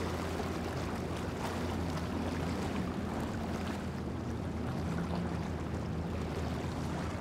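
Center-console motorboat's engine running steadily at speed, a low drone over a steady hiss of wind and water.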